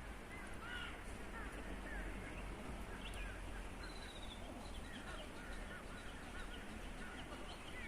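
Many birds calling, short repeated arched calls overlapping one another throughout, over a steady low background rumble.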